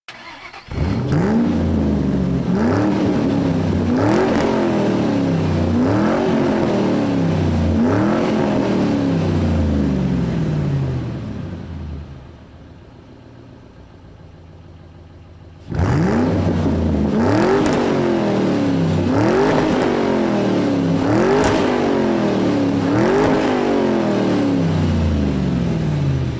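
An engine revving again and again, each rev rising quickly in pitch and falling back slowly, about one every two seconds. Midway it drops to a quieter, steady low run for a few seconds, then the revving starts again.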